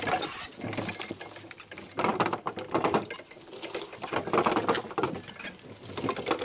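Hand-cranked grape crusher working: its crank turns the gear wheel and ribbed rollers, giving a rapid, irregular clicking and crackling as grape clusters are crushed between the rollers.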